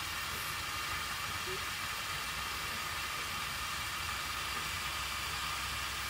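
Water running steadily into a large plastic jug as it fills, a constant rushing hiss with no breaks.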